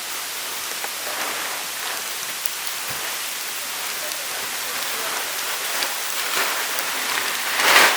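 Volcanic ash and fine gritty rock falling like rain, a steady pattering hiss. A brief louder swell comes near the end.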